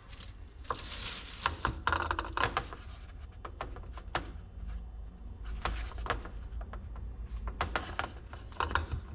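Scattered light clicks, taps and rustles as a plastic speaker basket is handled and sticky foam gasket tape is worked around it. A low steady hum runs underneath.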